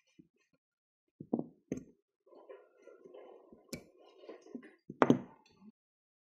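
A metal pick and needle-nose pliers working staples out of a car door's beltline weatherstrip retainer strip: several sharp knocks of tool on metal, the loudest near the end, with a stretch of scraping between them.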